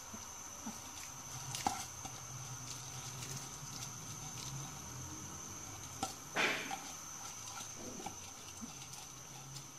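Soaked rice being pushed off a china plate into a pot of hot water: soft pattering and splashing, a few light clicks of the plate on the pot rim, and a louder rustling slide about six seconds in, over a low steady hum.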